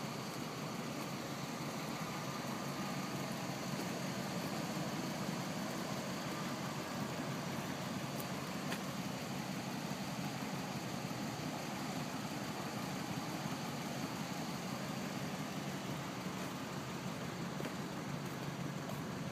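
1982 Chevrolet El Camino's engine idling steadily.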